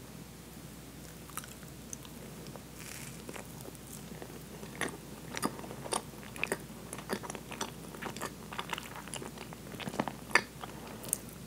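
A person biting into and chewing a Twinkie, a soft sponge cake with cream filling, up close. Chewing with many short, sharp mouth clicks that come thick and fast from about halfway through.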